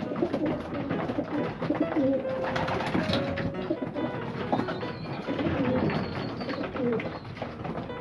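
Racing pigeons cooing in a loft: repeated low, throaty calls, with scattered light knocks and rustles from birds moving and being handled.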